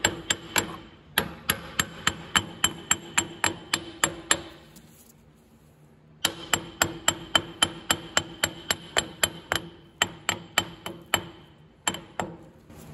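Hammer striking the steel front spindle of an Allis-Chalmers D17 tractor, knocking rusted pieces of the old dust shield loose. Quick ringing metallic blows about four to five a second, in two runs with a pause of nearly two seconds between them, and a couple of last blows near the end.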